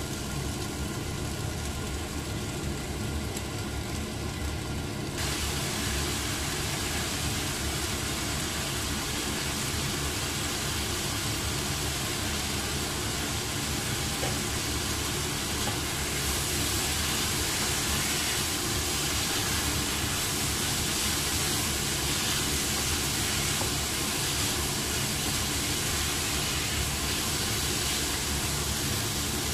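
Strips of carrot, potato and meat sizzling steadily in a frying pan, a dense hiss over a low steady hum, growing a little louder and brighter about five seconds in.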